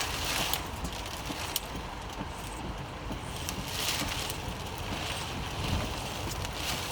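Steady road and wind noise heard from inside a moving vehicle, with a low rumble, swells of wind and a few faint ticks.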